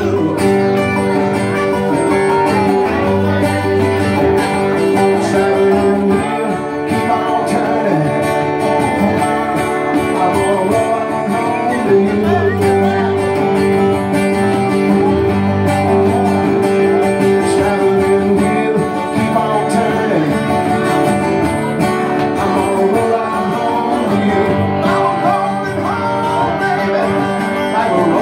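Live acoustic country/bluegrass music: a resonator guitar played lap-style with a slide bar, over two strummed acoustic guitars, with long held and gliding slide notes. No words are sung through most of it, so it is an instrumental passage.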